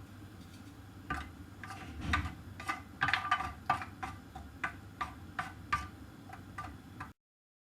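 Cashew nuts frying in a little hot sunflower oil in a pan: irregular crackling pops over a faint steady background. The sound cuts off suddenly near the end.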